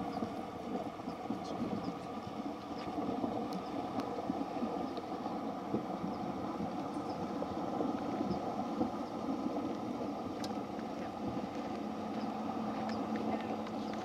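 A four-wheel-drive van's engine running and river water churning around its wheels as it fords a shallow river, heard as a steady rushing noise with faint scattered ticks; a low steady hum joins near the end.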